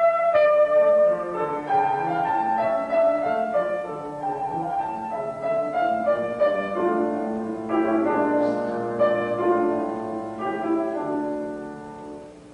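A held trombone note ends right at the start, then a grand piano plays the closing bars of a classical piece alone, its last chord fading away near the end.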